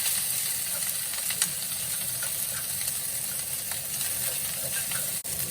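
Ketchup-coated rice sizzling steadily in hot oil in the pan, with a few faint clicks.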